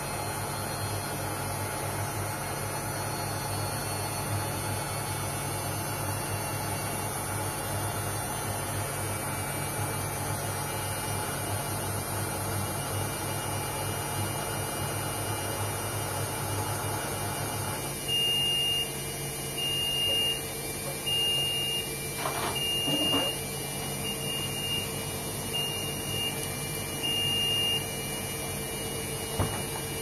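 LG Intellowasher front-loading washing machine running steadily with its motor humming and drum turning, then stopping about eighteen seconds in. The end-of-cycle signal follows: a string of short high beeps about one every second and a half for some ten seconds. Two sharp clicks come partway through the beeps, the door lock releasing, and there is another click near the end as the door opens.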